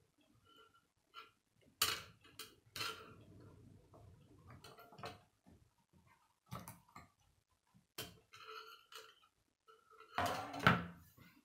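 K'nex plastic rods and connectors clicking and clacking as they are handled and snapped together, in irregular single clicks with a louder flurry of clatter near the end.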